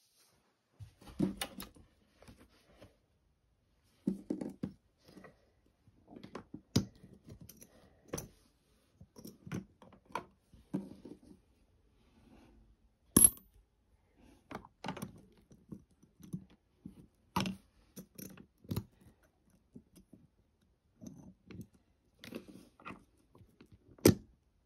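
Small hard objects being handled and dropped into a glass clip-top jar: scattered clicks, taps and knocks, with two sharp clinks, one about halfway through and one near the end.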